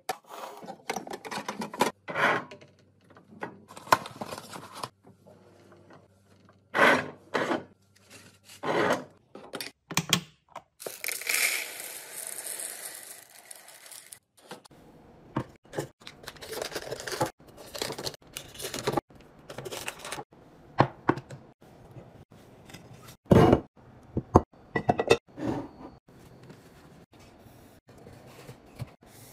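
A string of short household handling sounds: plastic containers and lids clicking and knocking, things set down on a counter, rustling. About eleven seconds in, coffee beans pour in a steady rattling stream into a glass canister for about three seconds.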